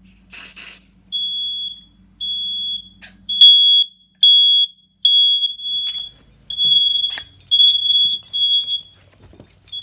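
Smoke detector alarm sounding after being set off with canned test smoke: a loud, high-pitched beep repeating on and off about once a second. A short hiss about half a second in.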